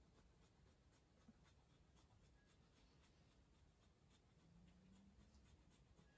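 Faint, repeated scratchy strokes of a block of Parmesan cheese being grated on a small hand grater.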